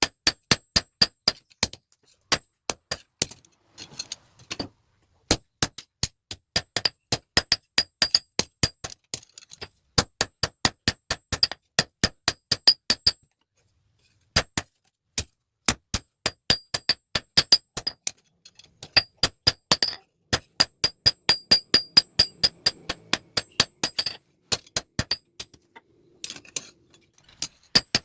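Hammer blows on steel over an anvil, about three strikes a second in runs with brief pauses, each blow ringing with a bright metallic tone, as tongs are forged.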